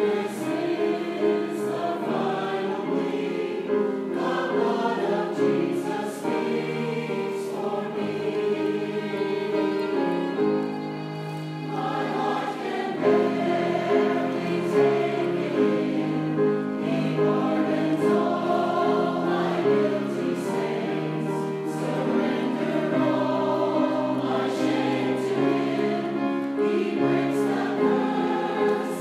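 Mixed four-part (SATB) church choir singing a gospel choral anthem, held chords shifting from note to note, briefly softer about eleven seconds in.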